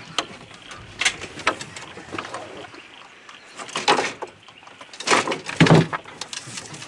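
Knocks, taps and clunks of a camper door frame being fitted into the doorway, a few scattered strikes with the loudest cluster about five and a half seconds in.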